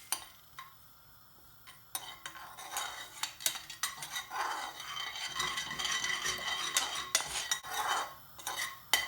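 A utensil stirring and scraping a curry around a pan, with clinks against the pan, starting about two seconds in.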